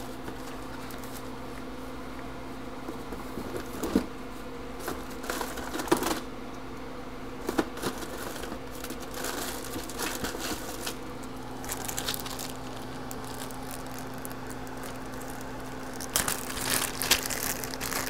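Irregular crinkling and clicking of small parts and plastic packaging being handled, in scattered clusters, over the steady hum of a running fume extractor fan.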